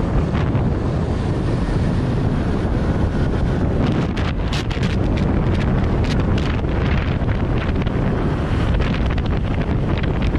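Wind buffeting the microphone of a camera on a motorcycle riding at speed: a loud, steady low rush, with gusty crackles joining in from about four seconds in.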